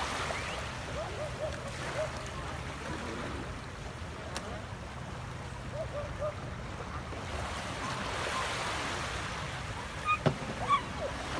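Surf washing onto a sandy beach: a steady hiss of waves that swells about eight seconds in. Near the end come a few short, sharp yelps.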